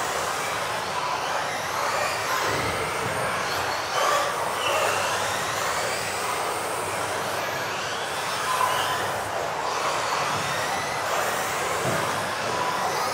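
Several electric RC off-road buggies racing, their motors whining up and down in pitch as they accelerate and brake, over a steady haze of running noise.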